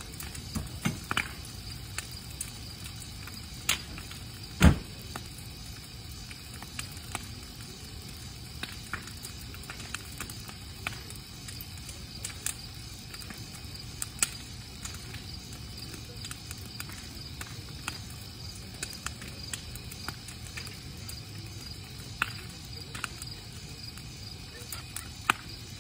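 Burning brush pile crackling, with scattered sharp pops and one loud pop about five seconds in, over a steady chorus of crickets.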